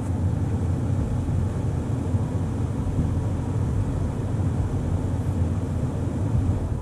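2020 Toyota Tacoma's engine idling with a steady low rumble, switched off near the end so that the sound dies away.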